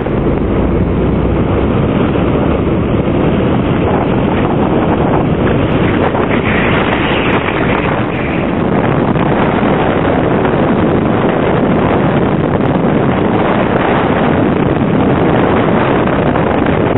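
Wind rushing over the microphone of a camera in a moving car, over steady road and engine noise. It is a loud, even rush throughout.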